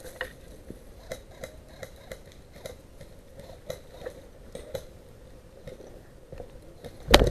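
Footsteps crunching on a dirt trail strewn with dry leaves, a light step about two or three times a second. A single loud, sharp knock comes near the end.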